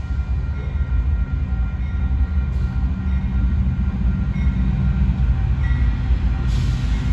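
Train going by: a steady, heavy low rumble.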